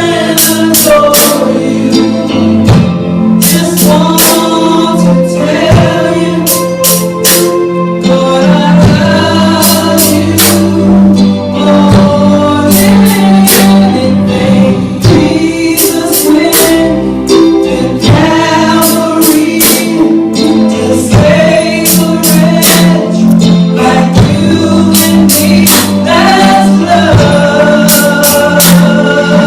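Live Christian worship song: voices singing a slow song of praise to Jesus over a band, with steady percussion strikes.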